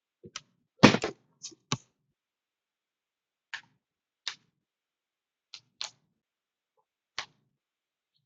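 A scattered series of short, light clicks and taps, about ten in all, the loudest about a second in.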